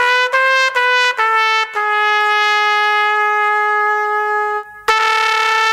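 Unaccompanied trumpet playing a few short separate notes, then a long held note, a brief break near the end and another held note.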